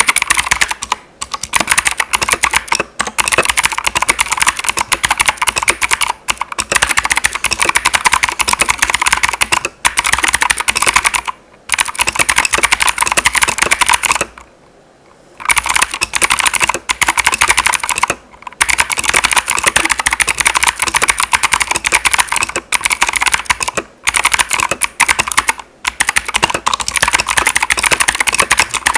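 Keychron K2 V2 mechanical keyboard with clicky blue switches, typed on rapidly in a steady stream of sharp key clicks, with a few short pauses, the longest about halfway through.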